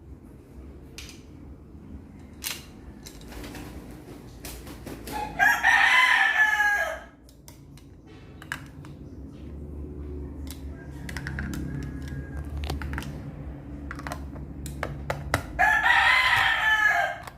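A rooster crowing twice, each crow about a second and a half long, the first about five seconds in and the second near the end. Scattered light clicks and taps sound between the crows.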